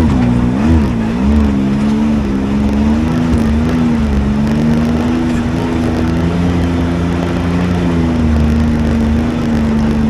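Can-Am Maverick X3 side-by-side's turbocharged three-cylinder engine running as it is driven along a trail. The revs rise and fall for the first second or two, then hold fairly steady.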